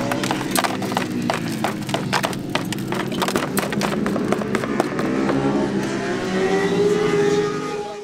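Motorcycle engine running, with many sharp clicks and ticks over a steady note, and a pitch that rises about six seconds in.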